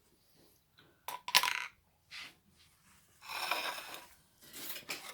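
A table knife clinking twice against a mayonnaise jar, the second clink ringing briefly, then scraping inside the jar about three seconds in. The scraping sounds like the jar is nearly empty.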